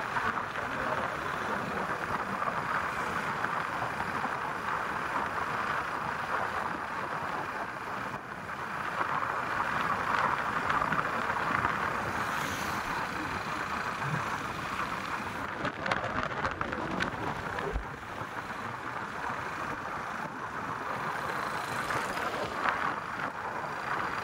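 Steady rushing noise of a vehicle travelling along a road, mixed with wind on the microphone. It swells a little about halfway through.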